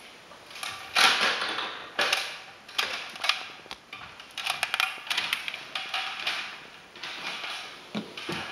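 Handling and movement noise from someone filming while moving about a room: an irregular string of rustles, knocks and creaks, the loudest about a second in.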